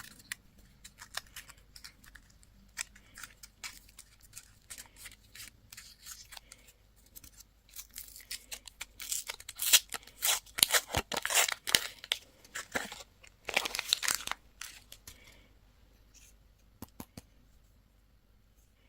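Candy wrapping being torn open and crinkled by hand: a run of small crackles and clicks, a louder stretch of tearing and rustling in the middle, then a few faint ticks.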